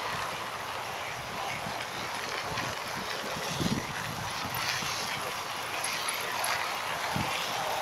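Steady rushing noise of wind and motion on a handheld smartphone's microphone while cycling on a gravel path, with a couple of low thumps, the loudest about halfway through.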